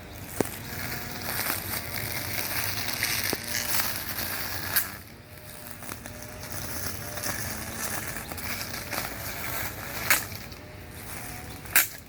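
Brush cutter with a metal blade running and cutting grass, its engine pitch rising and falling. A few sharp cracks stand out over it.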